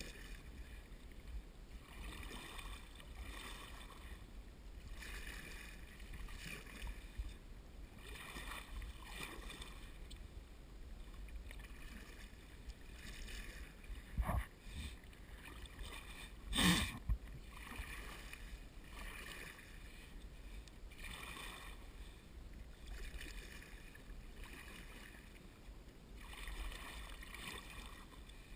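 Kayak paddle strokes swishing and splashing in river water, one every second or two. About halfway through there are two sharp knocks a couple of seconds apart, the second louder.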